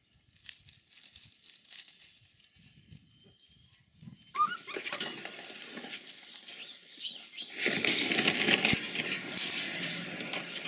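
Paper-and-plastic bag rustling as it is handled, then a bag of dry pellets poured into a shallow tray: a loud, steady pattering rattle for about three seconds near the end.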